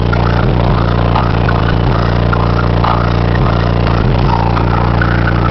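Bass-heavy music played loud through an aftermarket car stereo and subwoofer, heard inside the truck's cab, with deep bass notes held steady under the rest of the song.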